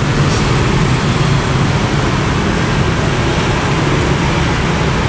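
Steady street traffic noise: a constant low rumble of passing vehicles with no let-up.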